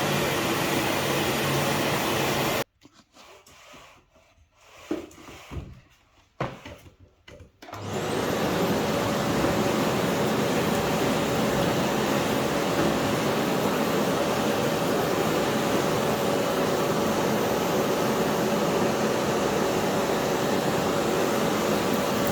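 Philips PowerPro FC9331/09 bagless vacuum cleaner with its 900 W motor running steadily. It stops abruptly a few seconds in, a few knocks follow, then the motor spins up again and runs on steadily with a high whine.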